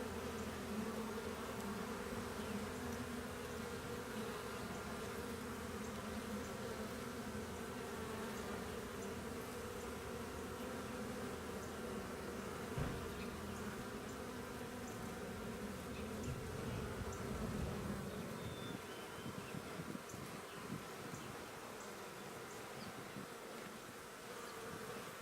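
Honeybees buzzing steadily around an opened hive, a hum of several overlapping pitches. A single thump about thirteen seconds in.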